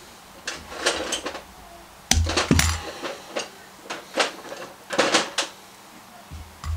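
Clicks, taps and light metallic clatter from a small-engine carburetor and hand tools being handled and set down on a workbench, with a dull knock about two seconds in.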